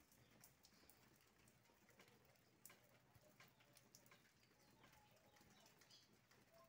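Near silence: faint rain, with scattered drips falling from a roof edge.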